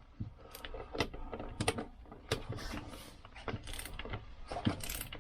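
Ratchet socket wrench clicking in short irregular runs as a nut on the Lambretta engine's drive sprocket is wound on.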